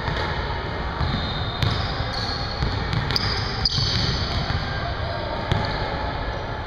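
Basketballs bouncing on a hardwood gym floor, a few sharp thuds scattered over a steady background rumble.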